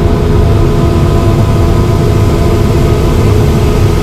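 Atlas Copco PowerRoc T45 drill rig's diesel engine and air compressor running loud and steady, a deep rumble with a steady whine over it. The blow air is slow to build up pressure when switched back on, the fault being chased.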